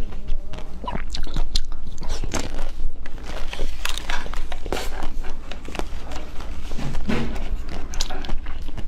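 Close-miked biting and chewing of a blue egg-shaped sweet, with wet, crunchy crackles as it is bitten through and chewed.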